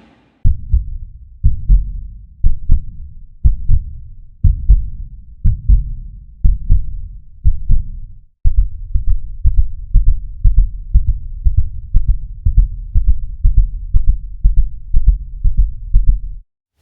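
Cinematic heartbeat sound effect: deep, low thumps, some in lub-dub pairs, about one a second, which break off briefly about eight seconds in and resume faster, about two a second.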